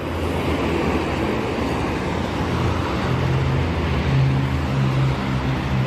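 Highway traffic passing at speed: steady tyre and engine noise, with a low engine drone that grows stronger from about halfway through.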